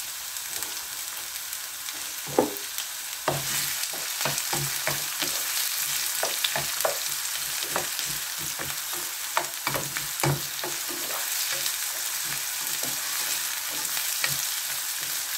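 Sliced onions sizzling in hot oil in a nonstick pan, with a steady hiss. From about three seconds in, a utensil stirs them, scraping and knocking against the pan many times.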